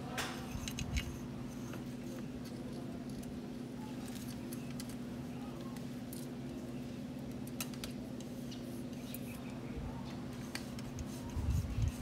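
Scattered light clicks and ticks of small metal parts and tools being handled while a bicycle's mechanical disc brake cable is fitted, with a dull thump near the end.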